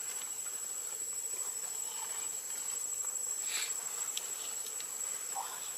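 Outdoor forest ambience dominated by a steady, high-pitched insect drone, with a few faint ticks and short chirping calls near the end.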